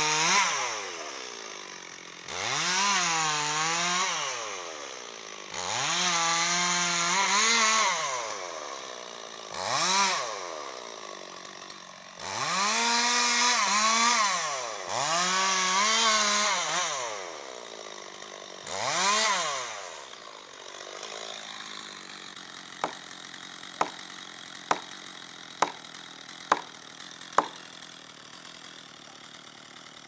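Chainsaw cutting into a very large tree trunk in repeated bursts of a few seconds, its engine pitch rising as it revs and falling back between cuts. After about twenty seconds the saw stops and six sharp strikes follow about a second apart: a sledgehammer or axe driving a felling wedge into the cut.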